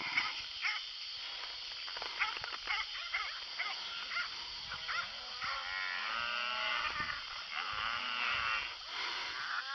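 Cattle mooing, several long calls overlapping from about halfway in, over scattered rustles and clicks.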